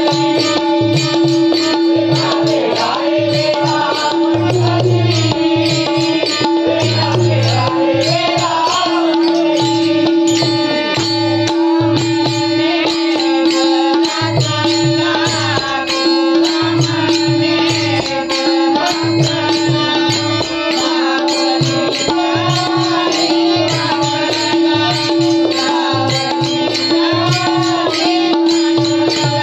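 Marathi devotional bhajan music: a voice sings a winding melody over a steady drone note, with hand-drum beats and rhythmic percussion clicks throughout.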